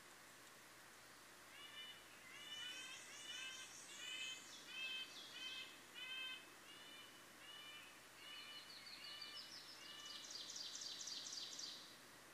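Faint birdsong from more than one bird. One bird repeats a short arched note about twice a second, starting a second or two in. A higher, fast trill joins twice, the second time louder, near the end.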